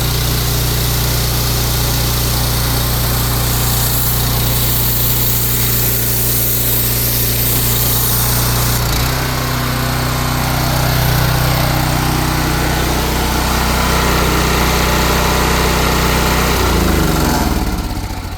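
Pressure washer running steadily, its note shifting about halfway through, then winding down with a falling pitch as it is switched off near the end.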